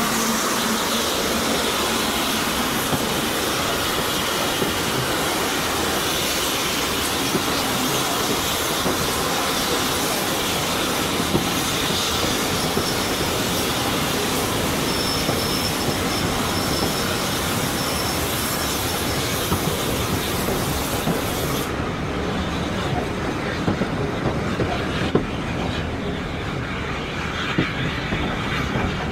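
A heritage railway passenger coach under way, heard from on board: steady running noise of the wheels on the track, clicking over rail joints, and a faint high wheel squeal about halfway through. About three-quarters of the way in, the hissing top of the noise drops away suddenly.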